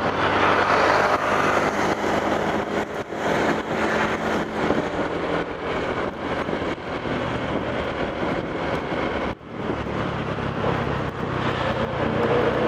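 Road traffic on a busy highway: the steady running of vehicle engines mixed with tyre and road noise, briefly dipping about nine seconds in.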